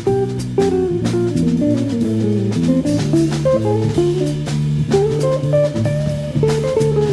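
Background music: plucked guitar with bass guitar and a drum kit keeping a steady beat.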